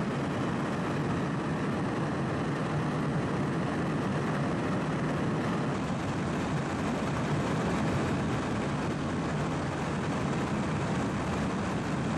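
Steady, unbroken drone of an aircraft's engines heard from on board the aircraft.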